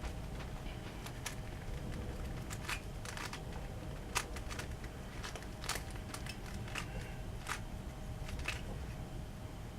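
DaYan Megaminx being turned by hand: irregular sharp plastic clicks as its faces are twisted and snap into place, about one or two a second.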